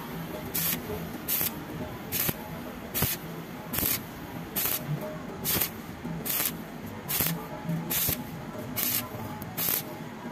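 Stick-welding arc on thin steel plate, crackling and hissing steadily as the electrode runs a vertical bead. The sound swells in evenly spaced pulses, a little more than once a second.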